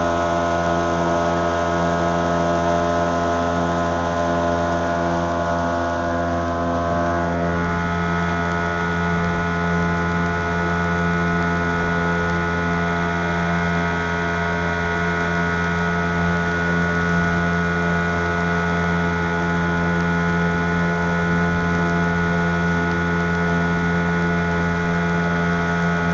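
A small boat's motor running steadily under way, its tone changing slightly about seven seconds in.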